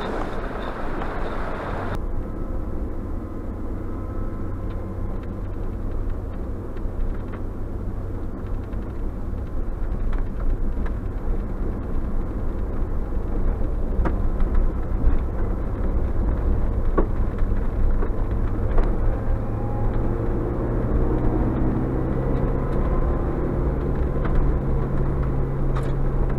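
Suzuki Jimny's four-cylinder engine and tyres droning steadily on a gravel road, heard from inside the cab, with occasional sharp ticks. The engine note rises a little about three quarters of the way through. Wind rush fills the first two seconds.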